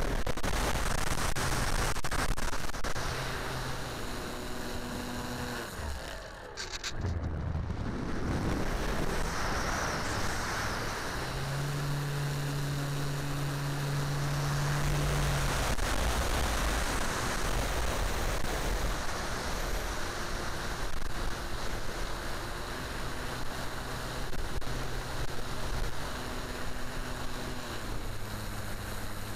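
Wind rushing over the onboard camera microphone of an RC T-28 plane in flight, with the hum of its E-flite Power 10 brushless motor and three-blade propeller shifting in pitch with the throttle. The motor hum drops away briefly about six seconds in.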